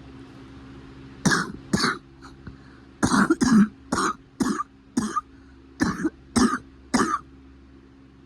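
A run of about eleven short, sharp coughs, some coming in quick pairs and threes, over a steady low hum. The cough is said to be getting better.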